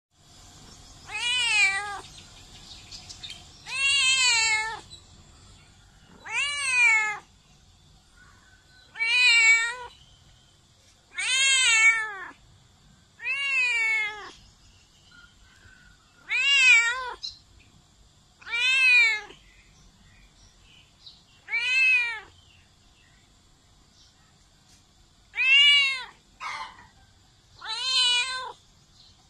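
Domestic cat meowing very loudly, over and over: about a dozen drawn-out meows, each rising then falling in pitch, one every two to three seconds.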